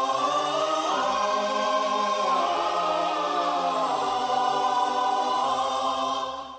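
Slow, sustained choir chords as a song intro, changing chord every second or two and fading away just before the end.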